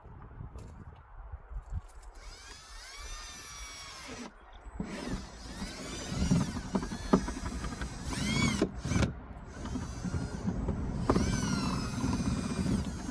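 Power drill run in several bursts, its motor whine rising and falling in pitch as the trigger is squeezed and let off, drilling holes through the truck's wheel well.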